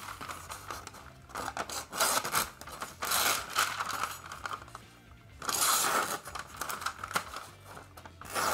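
Knife edge slicing through a sheet of paper in three strokes, each a short papery hiss, with paper rustling in between. The knife has been freshly sharpened on a 1000/3000-grit bench stone, and the strokes are its sharpness test.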